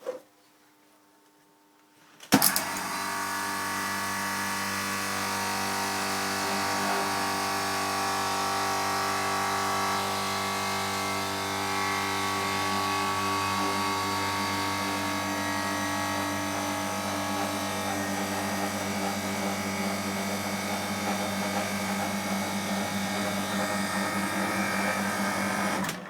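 Bristol hermetic refrigeration compressor starting with a sharp clunk about two seconds in, then running with a steady hum until it stops near the end. It is being test-run on a freshly fitted replacement start relay.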